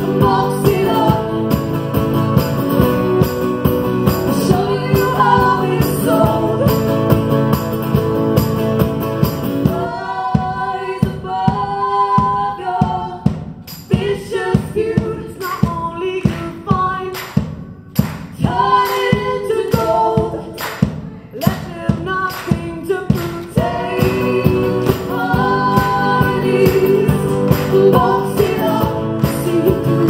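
Live acoustic duo: two female voices singing over two strummed acoustic guitars. About ten seconds in, the full strumming thins to sharp rhythmic strokes under the voices, and it comes back full a few seconds before the end.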